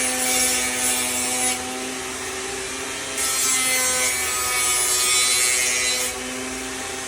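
Blender motor spinning a homemade sanding disc, two glued DVDs with sandpaper on top, with a steady whine. A knife blade is pressed to the sandpaper twice, giving a hissing grind for about the first second and a half and again from about three to six seconds in.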